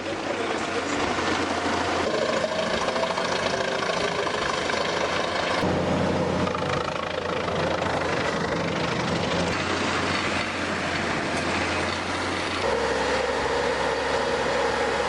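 Large drum wood chipper with a diesel engine, running under load as it chips wood. There are dense shredding noise and a steady engine hum, and the sound shifts abruptly twice, about a third of the way in and again near the end.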